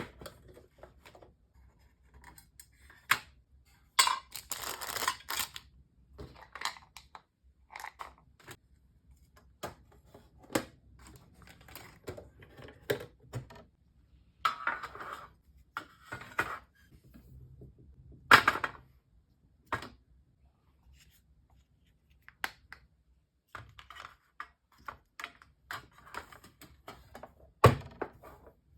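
Charcoal sticks and drawing tools being handled and sorted in a box: irregular clicks and knocks as pieces are picked up and set down, with a few longer bursts of rustling and a sharper knock about 18 seconds in and again near the end.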